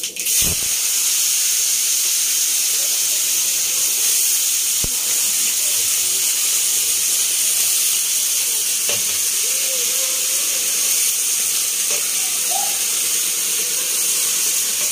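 Diced bottle gourd sizzling in hot refined oil in a kadhai: a steady frying hiss that starts as the first handful goes in, with a few faint knocks as more pieces are dropped into the pan.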